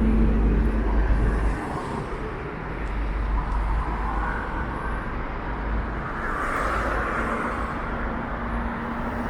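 City road traffic: motor vehicles running and passing, with a heavy low rumble that eases off about a second and a half in.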